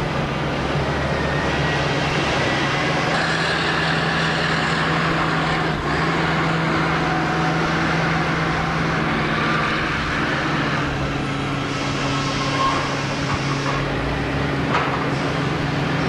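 A motor running steadily, a constant low hum under an even rushing noise.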